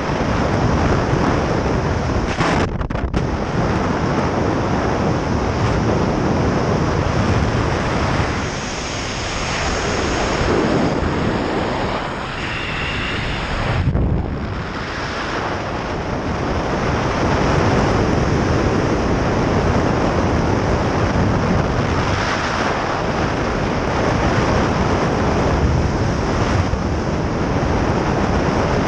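Rush of air over the camera's microphone while flying fast under a speedflying wing: loud and steady, swelling and easing with the airspeed, with a brief dip about two seconds in.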